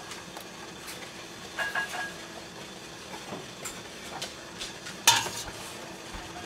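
Metal slotted spoon clinking against a ceramic plate and the pot as boiled bagels are lifted out of the water and set down in seed topping: a few light clinks about a second and a half in and one louder clink about five seconds in, over a faint steady hum.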